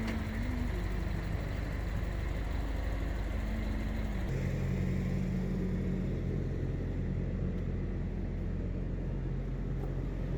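A motor vehicle's engine running steadily. Its note shifts to a different steady pitch about four seconds in.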